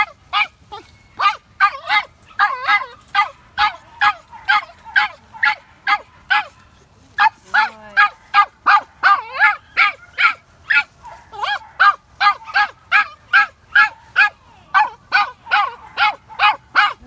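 Toy fox terrier barking steadily at the caged quarry at the end of an earthdog tunnel: rapid high-pitched yaps, about three a second, with one brief pause partway through. This barking is the dog working the quarry, which is what an earthdog test times.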